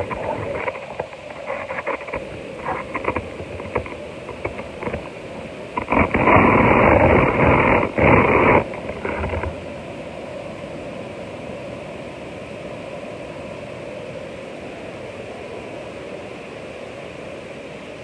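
Ocean surf rushing: crackling at first, then a loud rush lasting about two and a half seconds some six seconds in, settling into a steady hiss.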